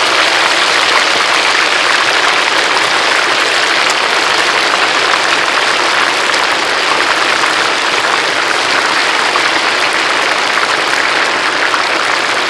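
Chicken wings deep-frying in a large wok of hot oil, a loud, steady sizzle.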